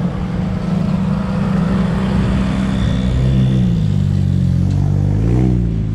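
Road traffic: a motor vehicle engine running close by, its note dipping and then rising again about four to five seconds in.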